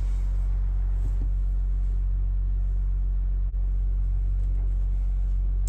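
A steady low drone, unchanging in pitch and level, broken only by a momentary drop-out a little past halfway.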